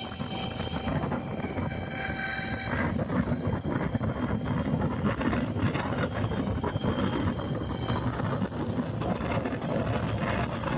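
Honda Unicorn single-cylinder motorcycle engine running, with a rough, dense engine sound and a steady high-pitched whine over it for the first few seconds. This is the noise filmed as a fault.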